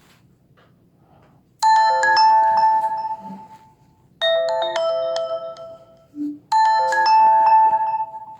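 Nokia Lumia 720 stock ringtone: a bright chiming melody played as three short phrases of about two seconds each, the first starting about a second and a half in.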